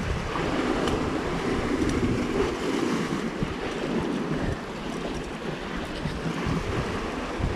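Sea surf washing, with wind buffeting the microphone; the wash is louder during the first few seconds, then eases.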